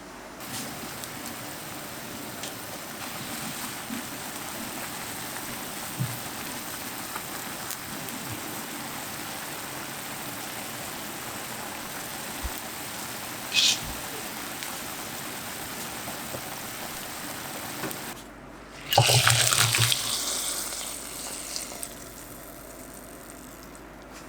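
Kitchen tap running steadily into a sink, with a small clink partway through; it stops about three-quarters of the way in, and after a short pause a louder rush of noise comes for about two seconds and fades.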